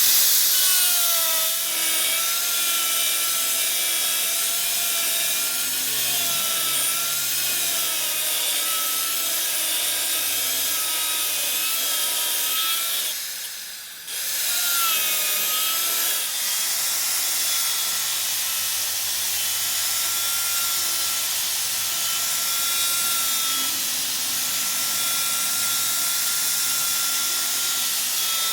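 A machine tool cutting metal with a steady, slightly wavering whine. It stops briefly about halfway through and starts again.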